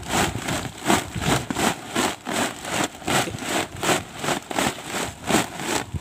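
A woven sack full of sea urchins being swished back and forth in seawater, sloshing and splashing in an even rhythm about two to three times a second, which scrubs the spines off the urchins.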